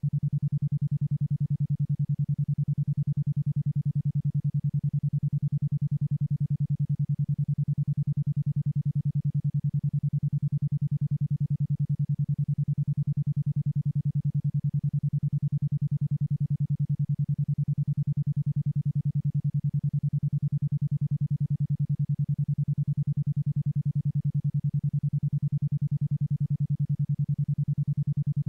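Isochronic tone: a single low, steady synthesized tone pulsing on and off about ten times a second (a 10.2 Hz alpha-range pulse rate meant for brainwave entrainment), unchanging throughout.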